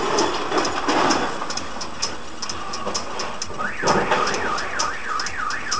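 A car alarm starts warbling about two-thirds of the way in, a fast up-and-down wail, after a small vehicle runs into a parked car. Regular ticking runs under it.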